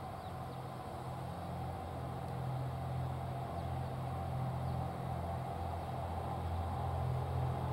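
A GV-E400 series diesel-electric railcar moving slowly toward the listener, its diesel engine giving a steady low drone that grows gradually louder as it comes closer.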